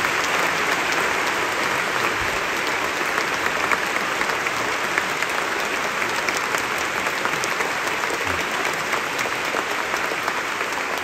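Large audience applauding steadily, a dense mass of hand claps.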